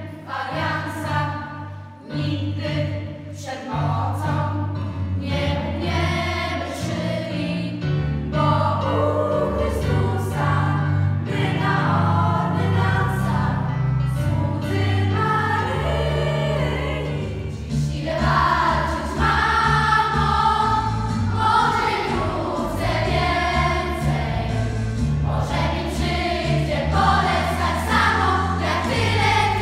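A children's choir singing a Polish Christmas carol (kolęda) in unison, with low sustained accompaniment notes under the voices.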